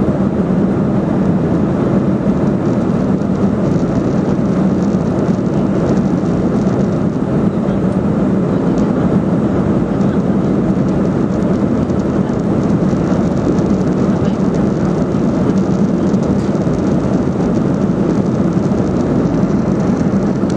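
Airliner cabin noise in flight: the steady, even rumble of the jet engines and rushing air heard from a window seat, with a low droning hum running under it. The plane is descending.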